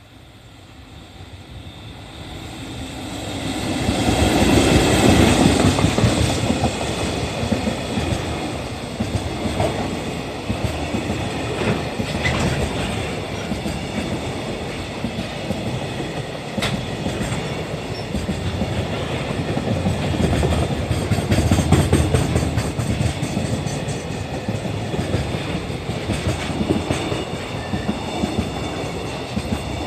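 Freight train hauled by an EF65 electric locomotive passing close by. It grows louder over the first few seconds and peaks as the locomotive goes past, about four to six seconds in. The freight wagons then keep up a steady rumble, their wheels clacking over the rail joints.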